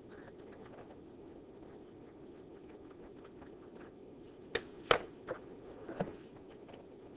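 A low steady hum with a handful of sharp clicks about four to six seconds in, as a stylus taps on a tablet screen.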